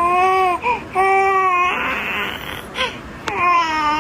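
A baby crying in long, steady, high-pitched wails, one after another. A second-long hiss falls between the wails a little before the middle, and a sharp click comes just before the last wail.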